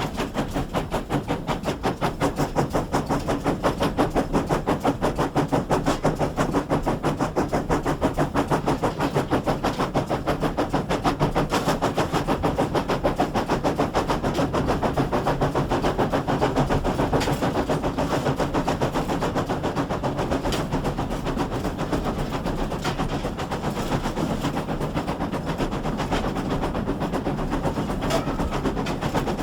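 GWR 6400-class pannier tank no. 6412, a 0-6-0 steam locomotive, working under steam with a rapid, even chuff of exhaust beats, easing off a little in the second half.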